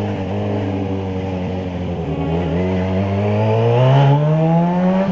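Yamaha XJ6 motorcycle's inline-four engine running under way, its pitch sagging a little and then rising steadily through the second half as it accelerates, easing off at the very end.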